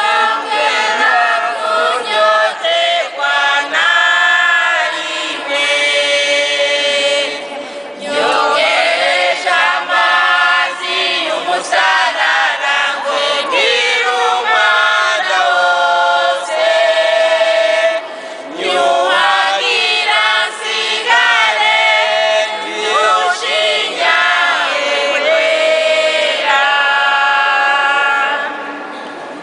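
A congregation singing a Burundian hymn together in a group of voices, with short breaks between phrases about 8 and 18 seconds in.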